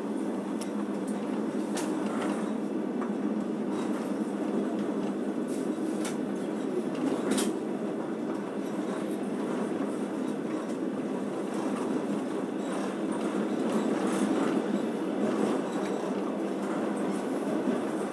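Passenger train running along the track, heard from inside the carriage: a steady rumble of the wheels on the rails with a few sharp clicks, the clearest about seven seconds in.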